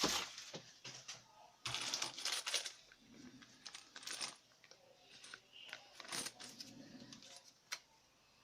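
Hands unpacking a set of small router bits and their packaging: irregular light clicks and short rustles, a little louder around two, four and six seconds in.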